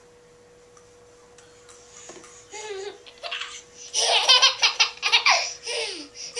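A toddler laughing hard in quick repeated bursts, starting a couple of seconds in and loudest in the second half. A faint steady hum lies underneath.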